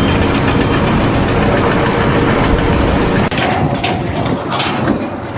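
A heavy engine running steadily, a little quieter from about three seconds in, with a few short knocks near the end.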